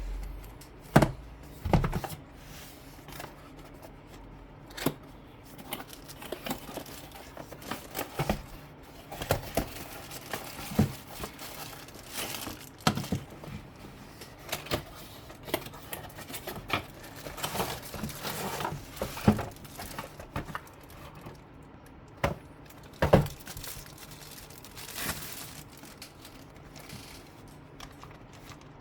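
Unboxing a keyboard: plastic and cardboard packaging crinkling and tearing, with scattered sharp knocks and clicks as the box and keyboard are handled.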